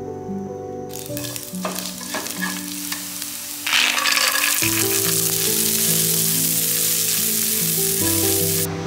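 Oil sizzling in a nonstick frying pan with chopped garlic. About four seconds in, corn kernels are tipped in and stirred with chopsticks, and the sizzle becomes much louder. It cuts off just before the end.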